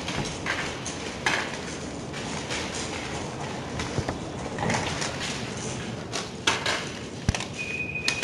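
Scattered light clicks and clatter of seeds and handheld beak tools against plates and desktops, as students pick up seeds during a timed foraging round.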